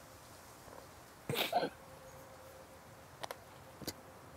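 A man's sob: a short, catching, breathy gasp about a second and a half in, followed later by two faint clicks.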